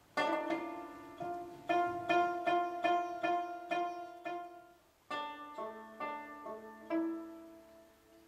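Rubab, a plucked lute, playing a slow melody alone. First comes a run of evenly spaced repeated notes, about two or three a second, then a shorter phrase that ends on a note left to ring and fade.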